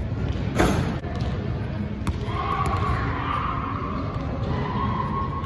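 A basketball strikes once with a sharp bang about half a second in, ringing briefly in a large gym hall. Then a steady low background of the hall with faint tones.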